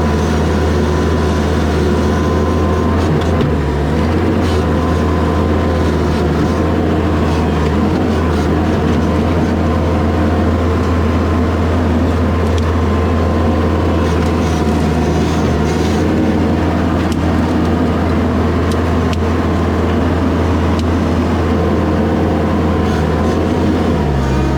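Toyota diesel skid steer engine running steadily under operation, with a brief change in engine note about four seconds in and again near the end.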